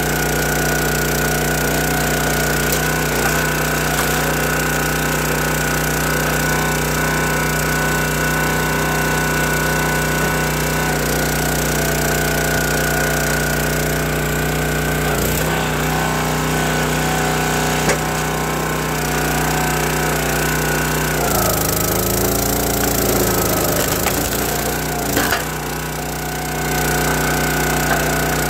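Gas-powered County Line log splitter's engine running steadily. Past the middle its note sags for about five seconds as it labours, then recovers. Red oak and maple wood cracks and splinters as it splits.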